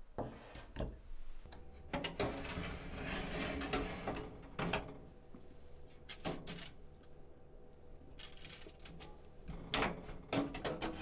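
Kitchen handling noises: light knocks and clicks as blocks of mochi are set on a wooden dish and on a foil-lined grill rack, and the metal fish-grill drawer of a gas range is handled, with a cluster of clicks near the end. A faint steady hum runs underneath.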